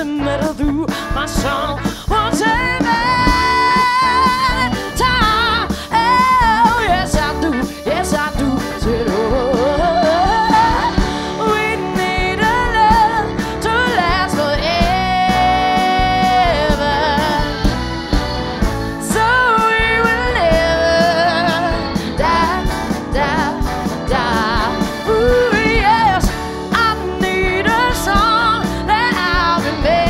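Live soul-rock band playing: drums, electric guitar, bass and a horn section under a woman's lead vocal, which holds long notes and slides between pitches.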